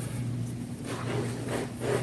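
Soft rubbing and swishing as flexible magnetic build-plate sheets are handled, a few brief strokes over a steady low hum.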